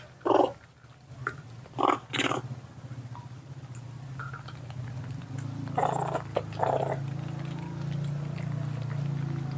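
Young macaques giving a few short squeaky calls in the first couple of seconds and again briefly around two-thirds of the way in, over a low, steady pulsing hum that sets in about three seconds in and grows louder.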